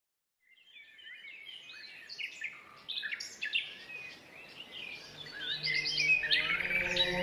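Woodland birds chirping and trilling, several calls overlapping, fading in from silence about half a second in and growing louder. Near the end, low held tones come in beneath them.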